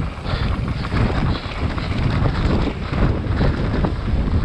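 Wind buffeting the microphone over the rumble of a mountain bike riding rough trail, with frequent knocks and rattles as the bike goes over bumps.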